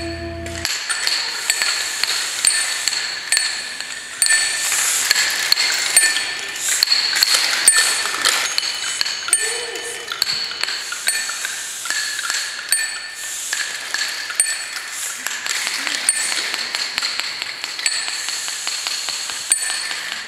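High-pitched tinkling music with no low notes: metallic chimes ringing over a steady tick a little more than once a second, with brighter swells now and then.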